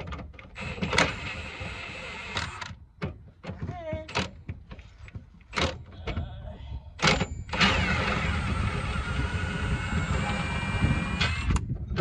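Irregular metal knocks and clanks from work on a stuck suspension bolt at a car's rear knuckle. Past the middle comes a steady mechanical whirring that lasts about four seconds and stops shortly before the end.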